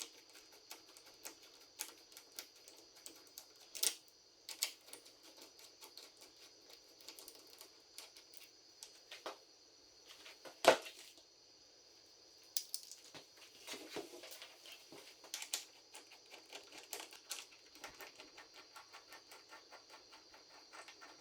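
Scattered small clicks and taps of a hand tool and loosened metal bolts and clamps being worked on a motorcycle handlebar mount, with a sharper knock about halfway through, over a faint steady high hiss.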